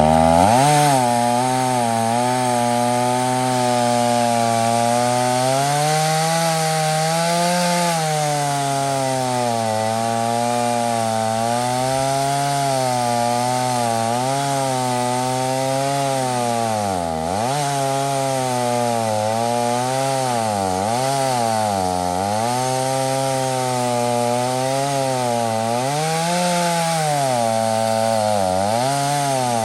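Chainsaw on a chainsaw mill ripping a log lengthwise into boards. It throttles up sharply at the start, then runs at high revs, its pitch dipping and recovering again and again as the cut loads the engine.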